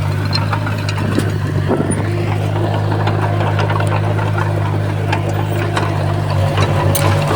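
Komatsu D20P bulldozer's diesel engine running at a steady speed, with scattered sharp clicks and knocks over it and a brief pulsing in the engine note near the end.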